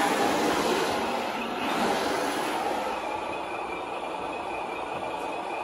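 An HG-P602 1/12-scale RC Cougar MRAP 6x6 truck running on concrete in its low crawling gear. Its sound module plays simulated engine noise over the whine of the electric drive and metal gears. The sound is loudest for the first couple of seconds, then settles a little lower with a thin steady high whine.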